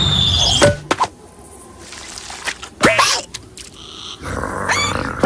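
Cartoon sound effects: a falling whistle that ends in a crash about a second in, followed by two short cartoon vocal sounds that rise and fall in pitch.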